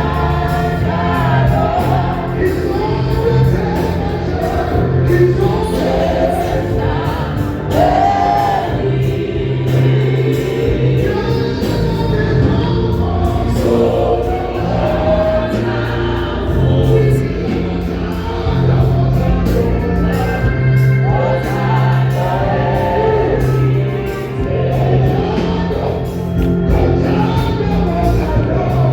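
Choir singing a gospel song over steady, held bass notes.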